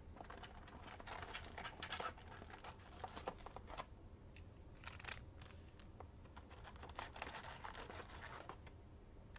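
Foil-wrapped trading card packs and a cardboard retail box being handled: a quiet run of short crinkles, rustles and scrapes, loudest around two seconds in.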